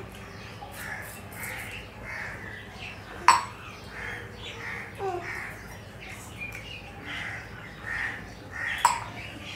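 Birds calling in the background, a run of short, repeated calls, with two sharp clicks, about three seconds in and again near the end.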